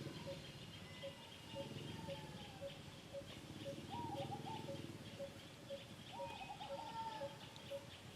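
Birds calling: one repeats a short note about twice a second, while other chirps and a few short gliding calls come and go.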